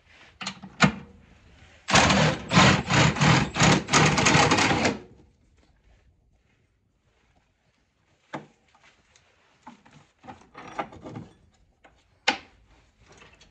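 A loud burst of rapid mechanical rattling lasting about three seconds, then scattered clicks and knocks, as the C4 Corvette's underbody spare tire carrier is unfastened and let down.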